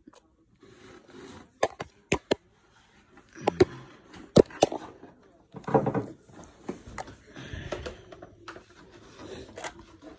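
Plastic toy kitchen pieces, a toy toaster and toy bread slices, being handled: several sharp clicks and clacks in the first half, with rustling in between.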